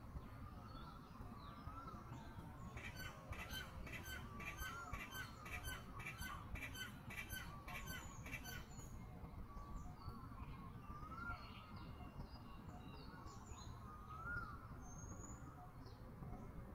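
Wild birds calling: one bird repeats a short rising-and-falling call every second or two, while a rapid series of sharp high notes runs for several seconds in the first half.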